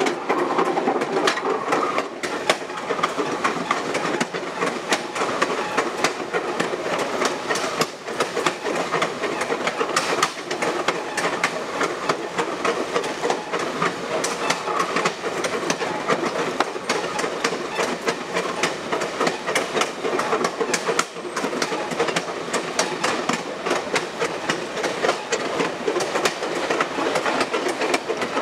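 Passenger train rolling along the track, heard from the back of the last car: a steady rumble and rattle of the car with a constant clatter of clicks from the wheels on the rails.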